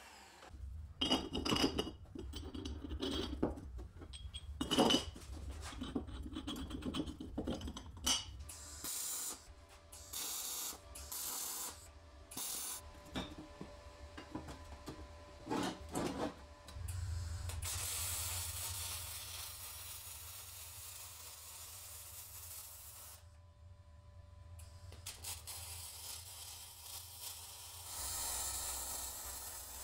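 Metalworking sounds in turn: a milling machine running at first, then steel pieces knocking and scraping as they are set against magnetic welding squares on a steel table, then a steady hiss that fits MIG welding, broken by a short pause.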